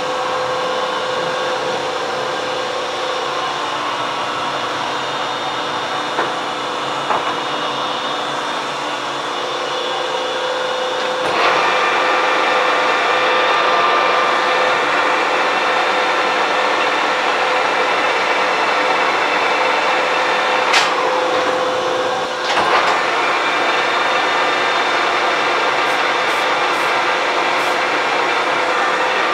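Lathe running steadily while a small carbide boring bar takes a light finishing cut in the 60-degree center taper of a Buick roller camshaft. The machine gets louder about eleven seconds in, dips briefly around twenty-one seconds, then picks up again.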